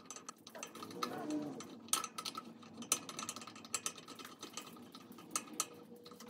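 Irregular small metallic clicks and scrapes of a screwdriver turning Phillips screws into a ceiling fan's metal canopy.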